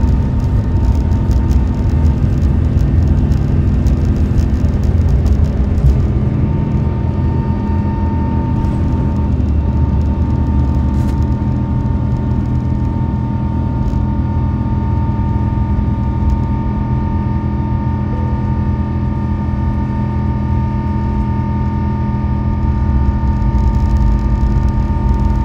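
Airbus A350-900's Rolls-Royce Trent XWB turbofans at full takeoff (TO/GA) thrust, heard from inside the cabin: a loud, steady drone with a whining fan tone on top. A rough rumble from the wheels on the runway fades out about six seconds in as the aircraft lifts off and climbs.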